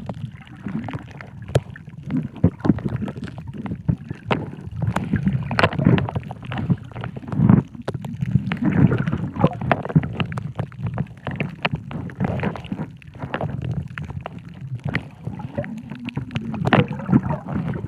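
Muffled water sloshing and gurgling around the camera, with many sharp crackling clicks scattered throughout.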